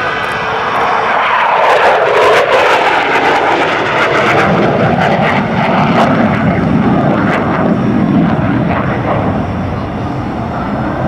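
F-16 Fighting Falcon's jet engine roaring through a fast pass: the pitch sweeps down a couple of seconds in as the jet goes by, then settles into a deep, steady rumble as it draws away.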